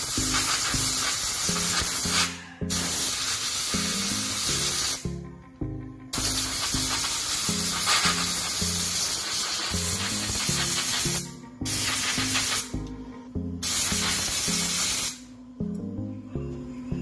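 Compressed-air blow gun hissing in long blasts into an angle grinder's housing, blowing out the built-up dust. The air stops briefly four times and cuts off near the end. Background music plays under it.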